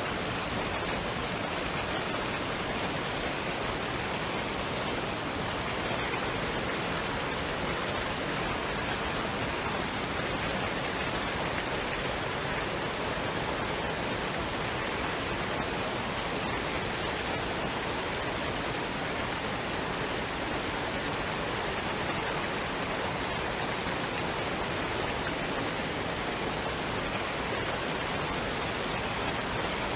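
Waterfall and stream water running, a steady even rush with no change.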